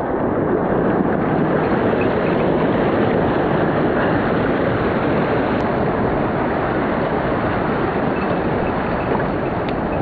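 Mountain stream rushing over rocks: a steady, unbroken wash of flowing water.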